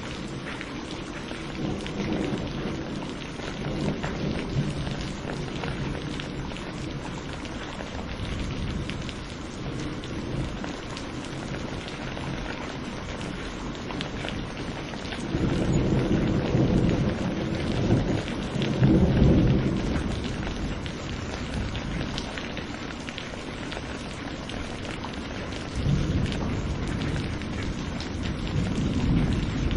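Steady rain falling with rolls of thunder rumbling low; the loudest rolls come about halfway through, and another begins near the end.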